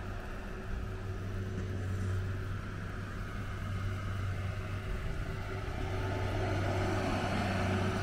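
Steady low rumble of city traffic and engines, with a constant low hum.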